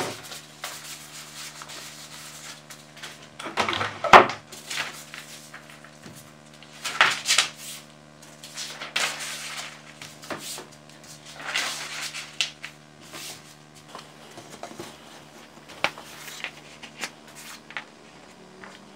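Sheets of printer paper handled by hand: a series of short rustling, crinkling bursts as the sheets are moved, folded and creased, the loudest about four seconds in. A steady low hum runs underneath.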